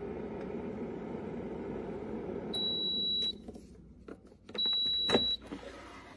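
DASH Tasti-Crisp air fryer's fan running steadily, then winding down as the timer runs out, with two long, high beeps signalling the cooking cycle is done. The basket drawer is then pulled open with a few knocks, the loudest during the second beep.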